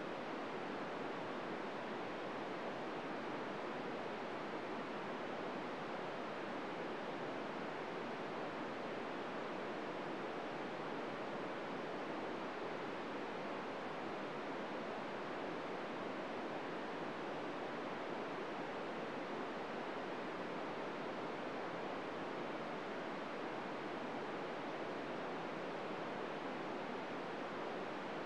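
Steady hiss of an open-squelch FM receiver tuned to the ISS's 145.800 MHz downlink, with no SSTV tones coming through: the radio is picking up only noise.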